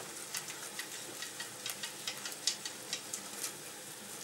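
Wire whisk stirring a thin flour-and-butter roux with water in a stainless steel saucepan, its wires scraping and clicking against the pan in quick, irregular strokes.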